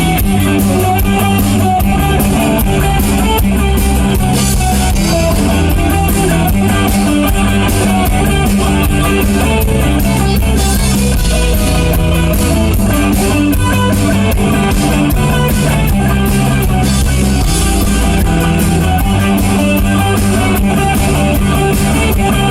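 Rock band playing an instrumental break between sung verses: guitar over a drum kit, with no singing.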